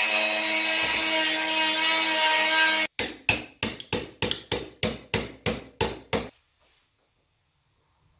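Corded handheld power tool running against a wood block with a steady whine, cutting off about three seconds in. Then a hammer drives a wood chisel into the block: about a dozen sharp blows, about four a second, ending a little past six seconds.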